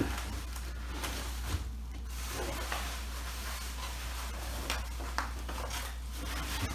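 Faint rubbing and handling noises with a few light taps, over a steady low hum.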